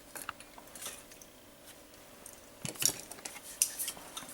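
Small hard objects being handled and set down: scattered light clicks and clatter, busiest from about two and a half to four seconds in.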